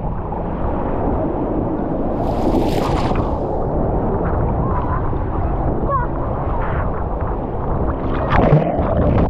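Muffled sea water churning and gurgling around a waterproof camera held underwater, with a brief hiss about two seconds in.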